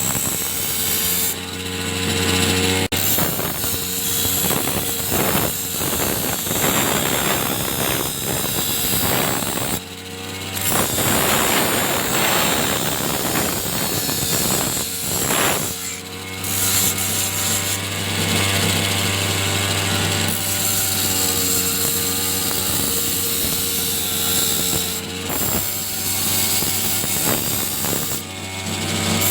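A power tool sharpening the steel blade of a grass cutter: a motor runs steadily, and a grinding, rasping noise swells in stretches as the blade is worked, loudest from about ten to sixteen seconds in.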